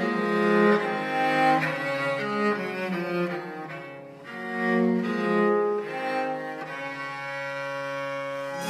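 Background music: a slow string piece of long held notes, changing about once a second.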